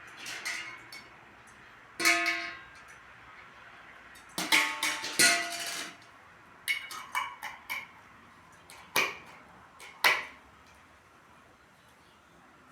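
A string of sharp clinks and knocks in irregular clusters, some ringing briefly with a clear pitch, like hard objects such as metal or glass being struck.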